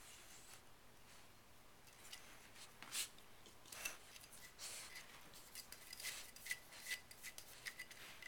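A puppy's teeth gnawing and scraping on a rawhide chew bone: faint, irregular scratchy rasps and clicks that begin about two seconds in and come thicker in the second half.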